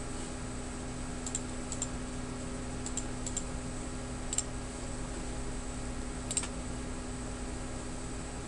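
Computer mouse clicking: about eight short sharp clicks spread over several seconds, some in quick pairs, over a steady low hum and hiss.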